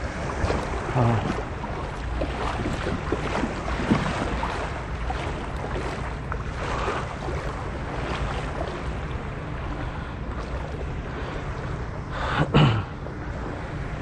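Light wind on the microphone and small waves lapping against a plastic fishing kayak's hull in shallow sea water, with a short loud bump about twelve seconds in.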